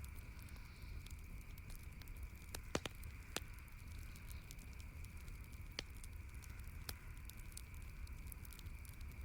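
Wood campfire crackling, with scattered sharp pops, a cluster of louder ones about three seconds in, over a steady background hiss.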